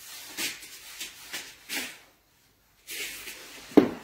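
Handling noise: rustling and rubbing, which break off for a moment in the middle, then a sharp knock just before the end.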